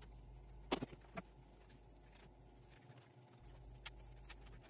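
Scissors cutting foam filter sponge: a few faint, sharp snips, two about a second in and two near the end, over quiet room tone.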